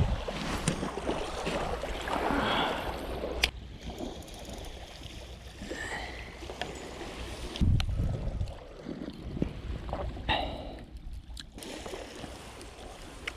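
Rustling and handling noises close to the microphone as fishing gear is moved about, over a steady rushing noise, with a dull bump about eight seconds in.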